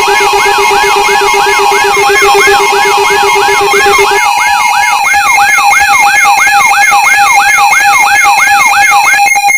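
Layered electronic alarm tones: a rising siren-like sweep repeating about three times a second over steady high tones. A low steady tone drops out about four seconds in, and the sweeps stop near the end, leaving the steady tones pulsing rapidly.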